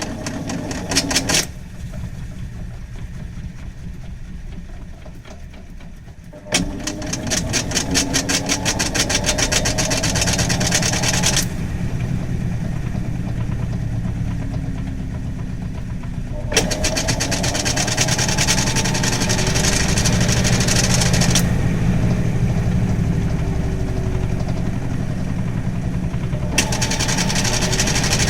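Hitachi NW-6AZ washing machine's non-inverter belt-driven motor running with a deep hum, cutting in and out about every five seconds, each run carrying a fast clicking rattle and a gliding change in pitch as the drum or pulsator speeds up and slows down. The rattle is the abnormal noise of a heavily used, worn machine.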